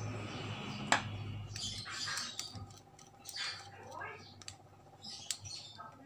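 Small handling clicks and rattles as a crimped wire terminal is fitted to a limit switch's screw terminal, with one sharp click about a second in. Birds chirp on and off in the background.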